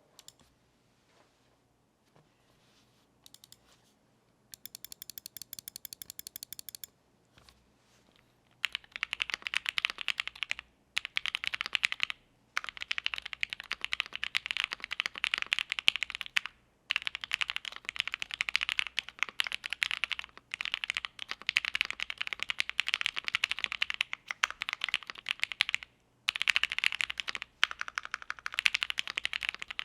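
Fast typing on a mechanical keyboard with Gateron Box Ink Black linear switches, a polycarbonate plate and GMK keycaps. The keys clack continuously from about nine seconds in, with a few short pauses. Before that comes a brief, evenly spaced run of clicks.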